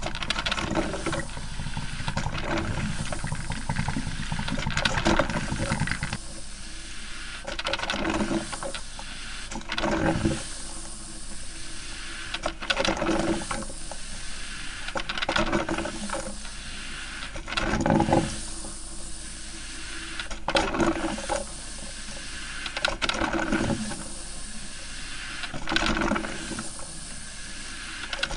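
Coffee maker brewing: a steady hiss with sputtering, gurgling surges of steam and water about every two to three seconds.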